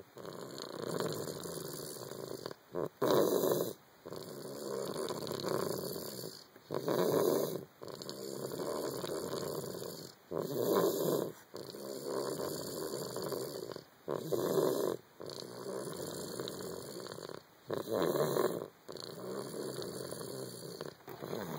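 A sleeping toddler snoring loudly, with rough, rattly breathing: about five louder, harsher breaths, one every four seconds or so, with quieter noisy breathing between. The snoring turned out to be the early sound of croup, which had first been put down to an ear infection.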